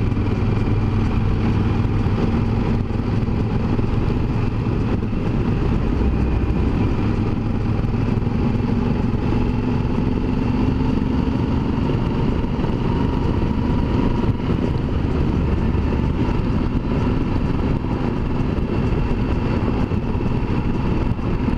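Yamaha Super Ténéré 1200's parallel-twin engine running at a steady cruise under way, with a continuous rush of wind and road noise.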